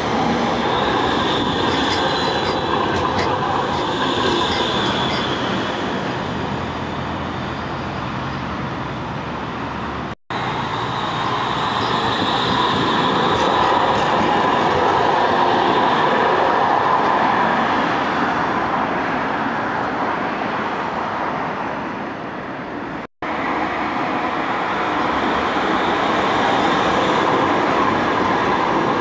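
Manchester Metrolink M5000 tram running on its rails, a steady rumble with a high wheel squeal at times. The sound breaks off suddenly twice, about ten and twenty-three seconds in, where the shots change. The last stretch is the tram heard from inside the car on the move.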